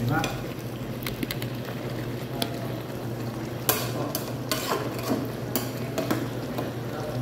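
Metal ladle stirring mung bean soup in an aluminium pot, knocking against the pot's side several times from about halfway through, over a steady low hum.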